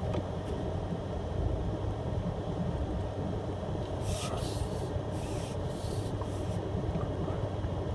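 Truck engine running low and steady as the truck creeps along, with three short scraping rushes about halfway through, as brush rubs along the body.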